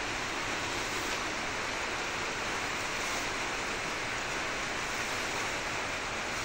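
Steady, even hiss of background noise, with no distinct events or changes.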